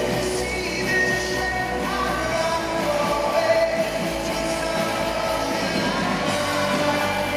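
Live rock band playing through a concert sound system, with a voice singing held notes over the band.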